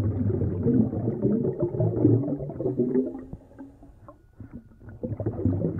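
Underwater bubbling of a scuba diver's exhaled breath from the regulator, a low, gurgling burble full of small pops. It fades out a little past the middle and starts again for the next exhale near the end.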